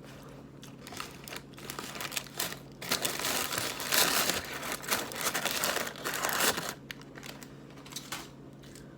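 Food packaging crinkling as it is handled: a few scattered crackles, then about three and a half seconds of dense, continuous crinkling from about three seconds in, easing off into a few light clicks near the end.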